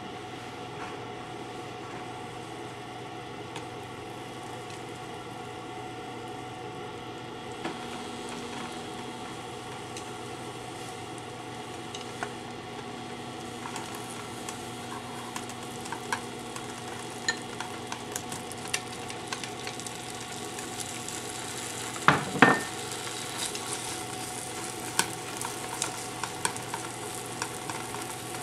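Butter sizzling quietly in a non-stick frying pan over a steady hum, pushed around with wooden chopsticks. About three-quarters of the way through, bacon strips land in the pan with a loud clatter. After that the sizzle turns to frequent sharp crackles and spits as the bacon starts frying.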